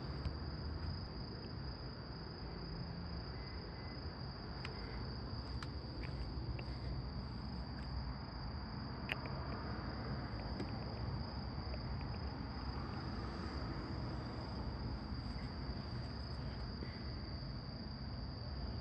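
Crickets trilling steadily in one continuous high tone, over a low rumbling background.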